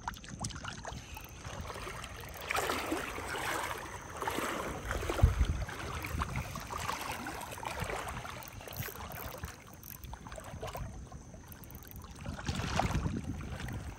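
Water sloshing and splashing in several surges during the fight with a big black drum hooked on a small spinning rod.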